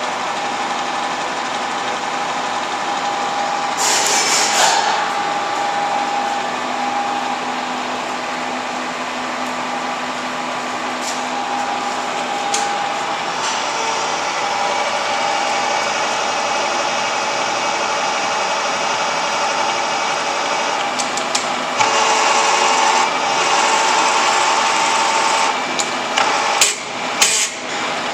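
Cincinnati No. 2 horizontal milling machine running, a steady mechanical whine from its drive. There is a brief rasping burst about four seconds in, the running sound grows louder about three quarters of the way through, and several sharp knocks come near the end.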